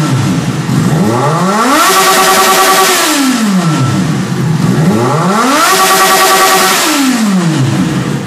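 Yamaha XJ6 inline-four revved twice through a homemade open exhaust. The exhaust is a YBR two-way pipe welded to a 4x1 pipe with its baffle sawn out, set to its 'aggressive' mode. Each rev climbs, holds high for about a second and drops back toward idle.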